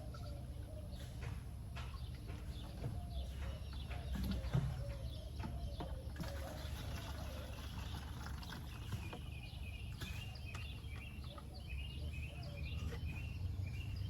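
Birds chirping in short repeated calls, clearest in the last few seconds, over scattered light clicks and knocks and a steady low rumble.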